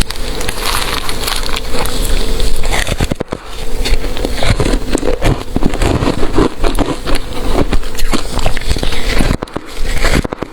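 Ice being bitten and chewed close to the microphone: a dense, continuous crunching and crackling of many small breaks.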